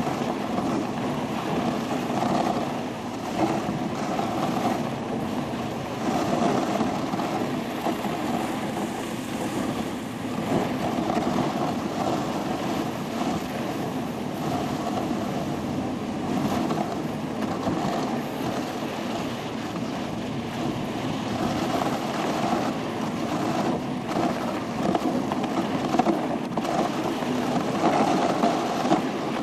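A dog sled running on a snowy trail behind a team of huskies: a steady rushing, scraping noise of the sled's runners sliding over the snow, swelling a little now and then.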